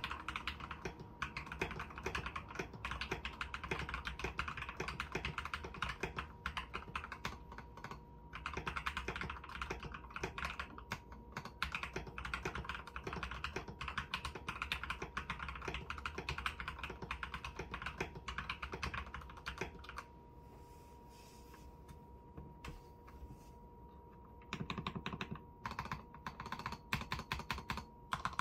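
Typing on a modded Gamakay LK67 mechanical keyboard with lubed Gateron Red linear switches, XDA-profile keycaps, added case foam and the tempest mod: fast, continuous key presses, broken by a pause of about four seconds near the end before typing resumes.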